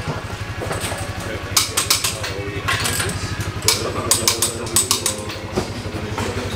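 An engine idling steadily with a low, fast, even pulse. Scattered sharp clicks and knocks sound over it.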